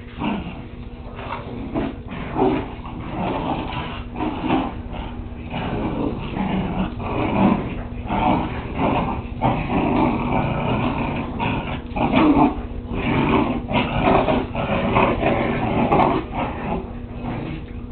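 Whippet puppies play-growling, with yips and whimpers in a near-continuous, irregular run of short sounds.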